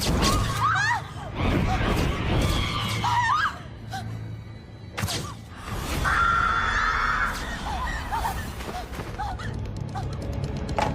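Film soundtrack: dramatic music over a steady low drone, with a sharp crash at the start and another about five seconds in.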